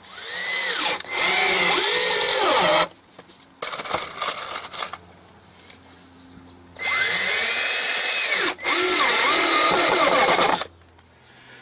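Cordless drill driving particle board screws into a trailer storage bay's particle board wall. There are two long runs of the motor whine, each briefly let off partway through, with the pitch sagging and recovering as the screw bites. A short stuttering burst comes between the two runs.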